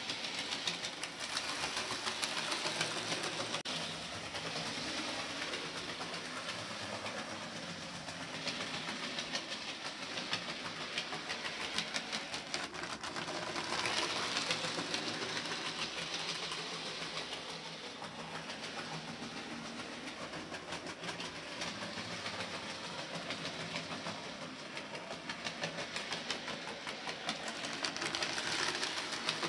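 OO gauge model tank engine pulling two model coaches around the layout: a steady running whir with fast clicking and rattling of the wheels on the track. It gets louder about halfway through and again near the end.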